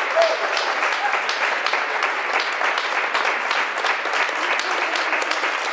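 Audience applauding: many hands clapping steadily, with a short call or two in the first second.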